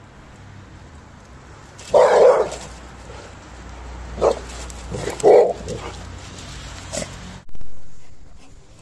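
A dog barking a few times in short, separate barks, the loudest about two seconds in and about five seconds in.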